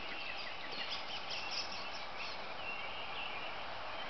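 Pre-dawn bird chorus: several songbirds chirping and trilling in quick high notes that crowd the first two seconds, thinning to a few longer whistled notes.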